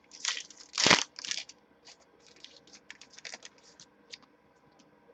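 A trading-card pack wrapper being torn open and the cards handled: short crinkling and tearing rustles, the loudest about a second in.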